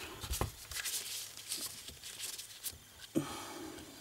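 Small 3D-printed plastic parts handled with gloved hands: scattered light clicks and rustling, with a sharper knock about half a second in and another a little past three seconds, as the replacement adapter is fitted into the blender's plastic housing.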